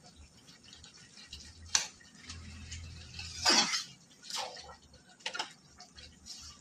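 A spatula stirring a thick vegetable curry in a metal karahi, knocking and scraping against the pot: a sharp tap about two seconds in, then a few scrapes, the loudest about halfway through.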